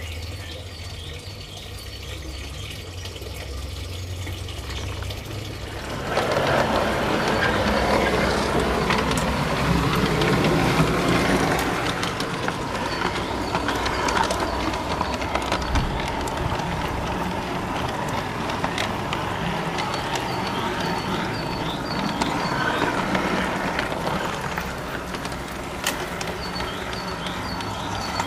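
Garden-scale model train heard from a camera riding on it: a low hum for about six seconds, then it sets off, its motor whining steadily as the wheels roll and rattle along the track.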